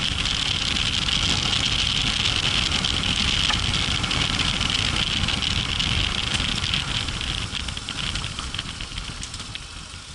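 Yamaha Ténéré 700's parallel-twin engine running as the motorcycle rides along a gravel track, with a few light ticks in the second half. The sound grows quieter near the end.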